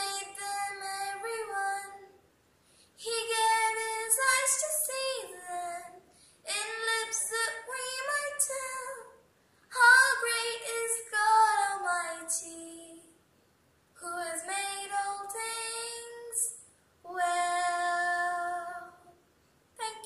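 A young girl singing unaccompanied, in six phrases of two to three seconds with short breaths between, some notes held steady.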